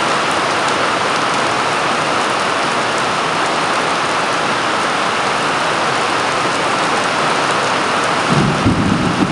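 Heavy rain falling steadily. About eight seconds in, a low rumble of distant thunder begins under the rain.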